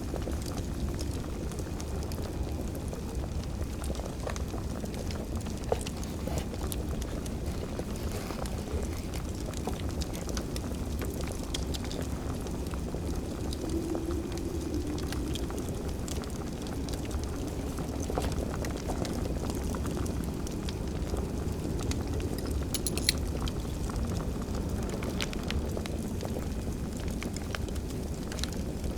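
Crackling wood fire: a steady low rumble with scattered small crackles and a few sharper pops.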